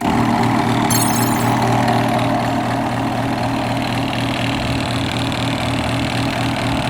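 Genie screw-drive garage door opener's motor running steadily without moving the door, with a grinding from the worn rail coupler, which is rounded out and no longer turns the screw. It starts suddenly, and a brief higher crackle comes about a second in.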